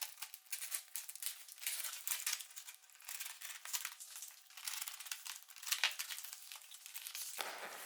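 Packaging crinkling and rustling as a parcel is opened by hand, a fairly quiet, irregular run of crackles.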